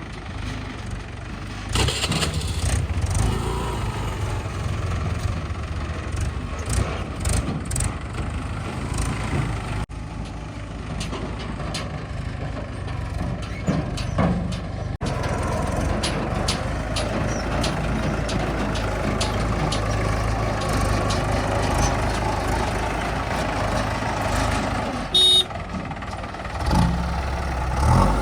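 Tractor diesel engine running steadily, with scattered knocks and clatter, and a brief high-pitched tone near the end.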